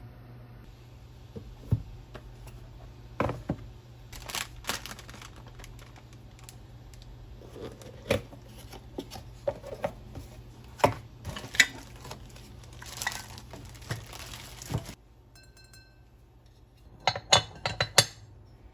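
Kitchen utensils, dishes and pots clinking and knocking in scattered, irregular strokes, with a few short scraping or rustling stretches. A steady low hum underneath stops about fifteen seconds in, and a quick cluster of clinks follows near the end.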